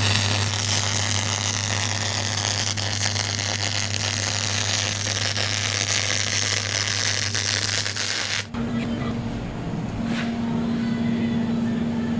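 Electric arc welding: a steady crackling hiss with a low mains hum under it, which cuts off abruptly about eight and a half seconds in. A steady low drone carries on after the arc stops.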